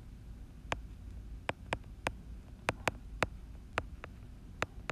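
Stylus tip tapping against an iPad's glass screen while handwriting: about ten sharp, irregular clicks over a faint low hum.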